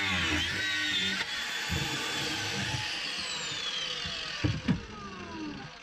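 Angle grinder cutting the flange of an old thru-hull, its pitch wavering under load. About a second in it is let off and winds down with a long falling whine. Two short knocks come about four and a half seconds in.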